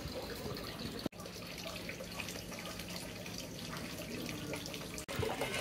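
Water running steadily from the bamboo spout of a sensor-activated temizu purification fountain into its stone basin. The sound cuts out for an instant about a second in and again near the end.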